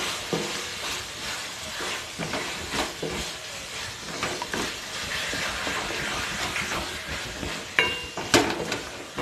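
Mutton pieces sizzling as they fry in spice masala in a kadai, while a wooden spatula stirs and scrapes them round the pan: the kosha stage of browning the meat in its spices. Two sharp metallic clinks near the end.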